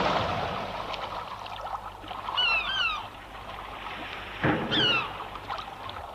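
Seabirds calling over the wash of the sea: a pair of short descending calls about two and a half seconds in, and another sharper downward call a couple of seconds later. A steady hiss of water runs under them.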